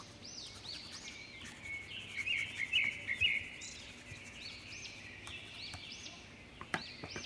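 Birds chirping in the background: short high arched calls repeated again and again, with a burst of rapid chatter about two seconds in. A single sharp click comes near the end.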